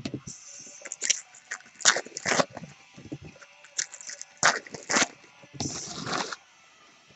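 Trading cards and their packaging being handled and sorted: a string of short crinkles and snaps, with a longer rustle about six seconds in.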